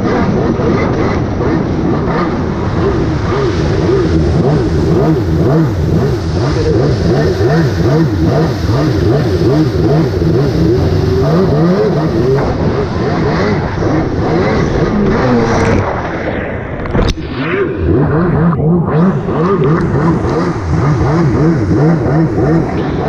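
Jet ski engine running at speed, its pitch wavering up and down constantly over a steady rushing noise. About two-thirds of the way through the engine note drops away briefly, with a sharp click, then picks up again.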